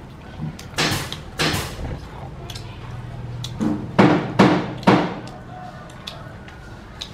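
Baby macaque eating, with wet chewing and lip-smacking sounds close up. There are a few sharp smacks in the first two seconds and a run of the loudest ones from about three and a half to five seconds in.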